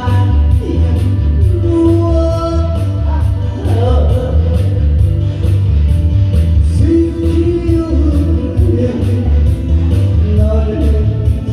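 A song with a singer over a backing track: a strong bass and an even beat of about two and a half ticks a second, with long held sung notes about two seconds in and again about seven seconds in.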